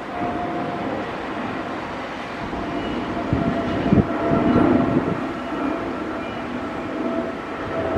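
Steady rumble of a moving vehicle heard from inside, with a few faint steady tones and a couple of dull thumps about three and four seconds in.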